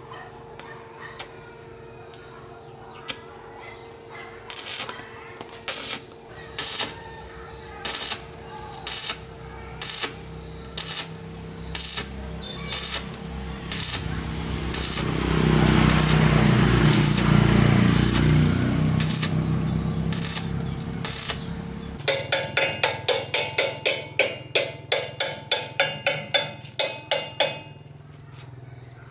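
Workshop sounds of metal being worked: separate knocks about once a second, a louder rushing stretch in the middle, then a fast run of ringing metallic strikes, about three a second, for several seconds near the end.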